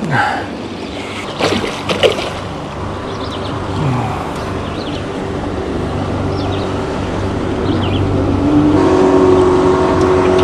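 A motorboat's engine running steadily, growing louder in the last couple of seconds as the boat comes nearer. A few sharp knocks sound in the first two seconds.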